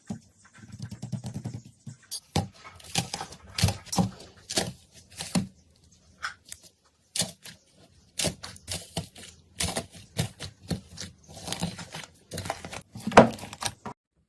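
Slime being squeezed and handled, making irregular sticky pops and crackles, with one louder pop near the end.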